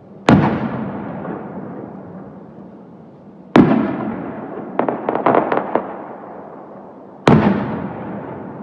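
Aerial firework shells bursting: three loud booms about three and a half seconds apart, each trailing off in a long fading echo. Between the second and third boom comes a quick run of sharp crackling pops.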